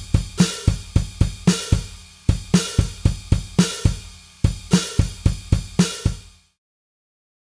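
Background music with a steady drum-kit beat of kick, snare and hi-hat or cymbals. It fades out about six and a half seconds in.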